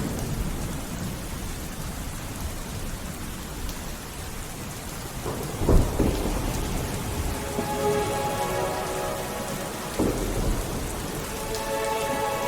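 Steady heavy rain with thunder: a sudden clap about six seconds in and a smaller one near ten seconds. Faint sustained music tones fade in under the rain in the second half.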